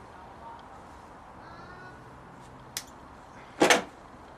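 Hand work on a motorcycle turn signal: a sharp click, then about a second later a louder short clunk, as the part is tightened.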